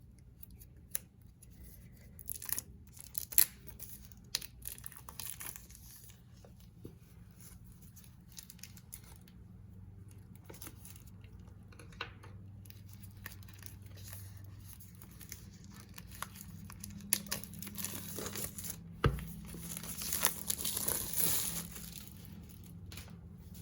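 A journal's packaging being torn open and unwrapped by hand: on-and-off tearing and crinkling with small clicks and taps, densest a few seconds before the end, and a dull thump about nineteen seconds in.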